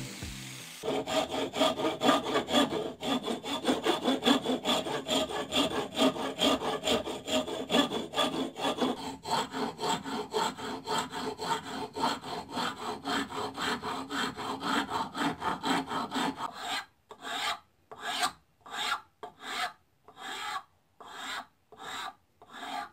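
Hand tool working a wooden knife-handle blank held in a vise: rapid, even back-and-forth strokes, about four or five a second, for most of the time, then slower, separate strokes with short pauses between them for the last few seconds.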